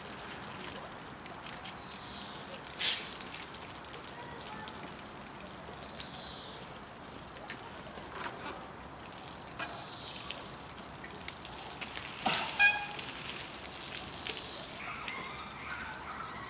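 Mountain bike dropping off a concrete bench and landing on gravel: a sharp landing knock about three seconds in, and a louder, harder landing about twelve seconds in with a brief metallic rattle of chain and frame. A steady outdoor hiss sits underneath.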